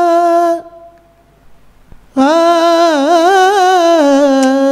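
A solo voice singing a sustained, ornamented vocal phrase on an open vowel through a microphone. The first held note breaks off under a second in. After a short quiet gap, a new long phrase starts, with wavering turns in pitch.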